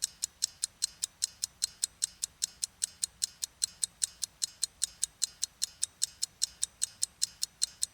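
Clock-style ticking of a quiz countdown timer sound effect, steady at about five ticks a second, timing the pause for the viewer to answer.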